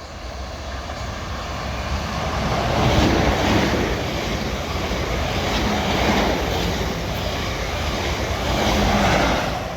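Two coupled Class 444 Desiro electric trains passing through the station at speed without stopping: a rushing of wheels and air that builds over the first three seconds, holds, and fades near the end.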